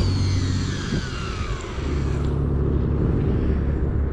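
Fishing reel spool spinning as line pays out on a cast: a whine that falls in pitch over about two seconds as the spool slows, then fades. A steady low rumble continues underneath.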